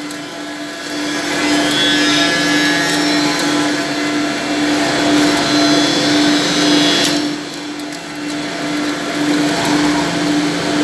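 CNC copying shaper's rotary cutters shaping a wooden brush block: a steady motor hum under loud, continuous cutting noise, easing briefly near the start and again about seven and a half seconds in.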